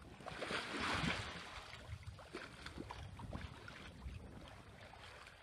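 Faint wind-like rushing noise that swells about half a second in and fades after a second, with a few soft ticks scattered through it.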